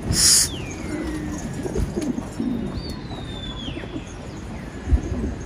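Domestic pigeons cooing, with a short loud hiss right at the start, two long falling whistles in the first half, and a thump near the end.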